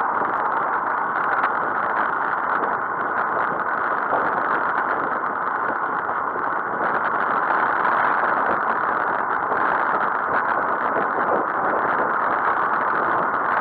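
Steady rushing of wind over the microphone and tyre noise on tarmac from a road bike riding at speed.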